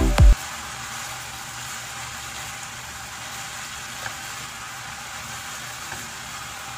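A last thudding beat of electronic music at the very start, then a steady hiss of noodles and shredded vegetables sizzling in a hot pan as they are stir-fried, with one faint tap about four seconds in.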